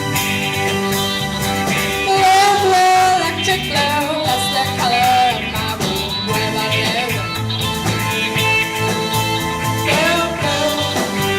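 Live rock band playing, with a singer over guitar, bass, synth and drums.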